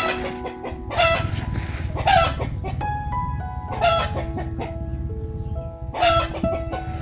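Chickens calling: short calls repeated every one to two seconds, over soft background music with held notes.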